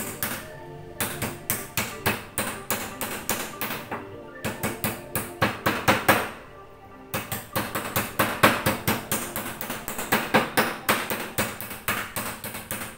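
Kitchen knife chopping quickly on a round wooden cutting board, in rapid even strokes with a couple of short pauses and one longer pause about halfway through, over background music.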